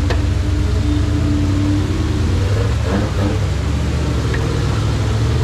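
An off-road rock crawling buggy's engine running at low revs with a steady low rumble, with a few knocks around three seconds in.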